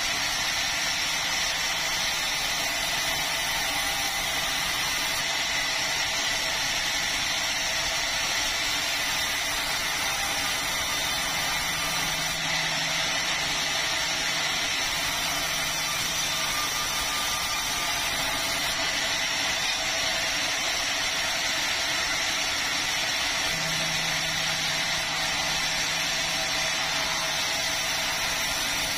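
Sawmill running steadily as a red meranti log is sawn, an even machine noise with a faint high whine throughout.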